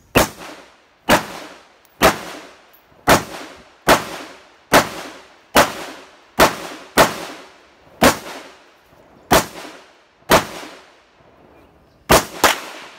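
AR-15 rifle fired semi-automatically, shot after shot at roughly one a second, about fourteen shots with two fired close together near the end. Each loud crack trails off in a short echo.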